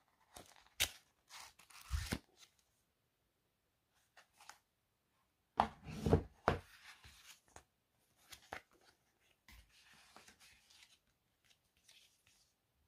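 Paper manuals and leaflets being handled and unfolded, with a cardboard box insert: scattered rustles and crinkles in short bursts, the loudest a knock about six seconds in.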